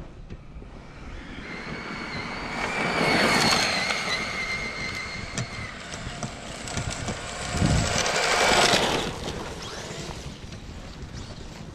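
Traxxas Maxx Slash RC short-course truck driven hard on 6S: its brushless motor whines at speed while the tyres spray dirt and gravel. The sound swells twice, first about three seconds in and again near nine seconds.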